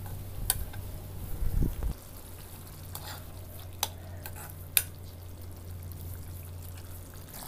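Metal ladle stirring papaya simmering in a wok, with a few sharp clicks of the ladle against the pan over a faint frying sizzle. A louder low thump comes about a second and a half in.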